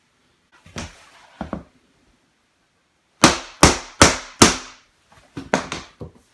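Soft face mallet knocking vinyl flooring planks down to lock their seams: two lighter knocks, then four sharp knocks in quick succession about three seconds in, and a few more near the end.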